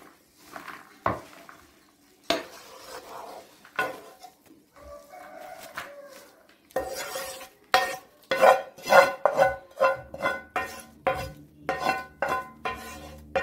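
Wooden spatula scraping and knocking against a nonstick frying pan as cooked spinach filling is pushed out into a plastic bowl. There are a few scattered scrapes at first, then from about halfway a quick run of knocks, two to three a second, each with a short ringing note from the pan.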